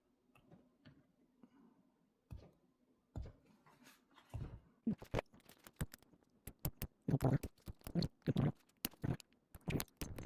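Handling noise from a bobby pin and a pair of Peerless 700C handcuffs: a few faint taps at first, then many short clicks, knocks and rustles from about four seconds in, coming faster near the end.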